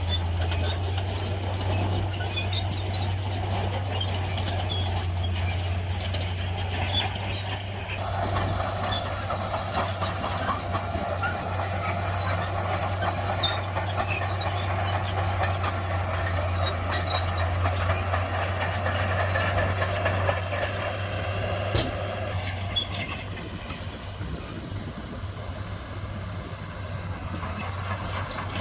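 Heavy diesel earthmoving machinery working, with a steady low engine drone and scattered clanks and squeaks over it. The machine's sound changes about a third of the way in and eases off near the end.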